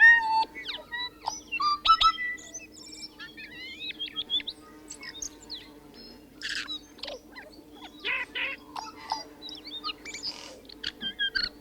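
Tui singing: a varied run of liquid whistled notes, quick pitch glides and clicks, broken several times by harsh, wheezy rasps.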